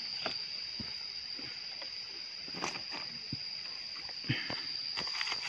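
Steady high-pitched insect drone, with scattered short rustles and snaps as pigeon pea pods are picked by hand from the bushes.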